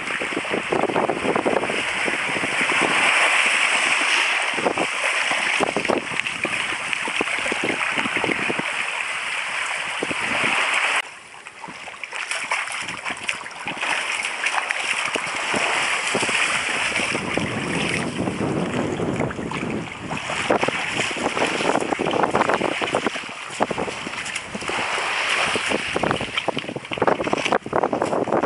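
Small waves washing over a pebble shore, with wind on the microphone. After a short drop about eleven seconds in, water splashes as a freshly speared fish is rinsed in the shallows.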